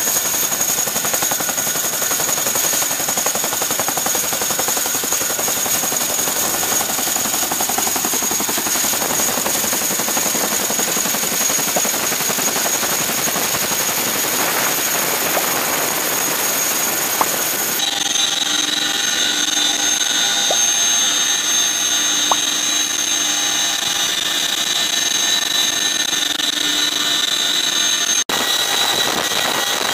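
Turbine engines of a CH-47 Chinook running on a carrier flight deck: a steady high-pitched whine over a loud rushing noise. The sound changes abruptly about two-thirds of the way through, with a new set of steady whine tones, and changes again near the end.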